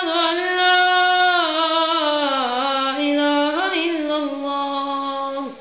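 A single unaccompanied voice chanting one long, held melodic phrase. Its pitch slides slowly downward, with an ornamented wavering turn near the end before the note fades out.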